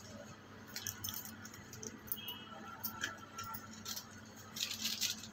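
Light scattered clicks and clinks of kitchen utensils and spice containers being handled, over a faint steady low hum.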